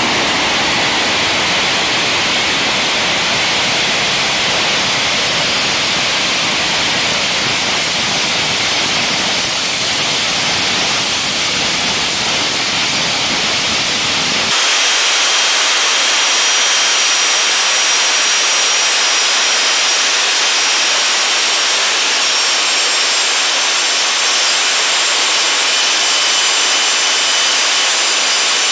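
Rolls-Royce Marine Spey gas turbine running steadily on a test stand, a loud even roar of rushing air. About halfway in the sound changes abruptly: the low rumble drops away and a high whine of several steady tones rises over the hiss, as heard close to the bellmouth intake.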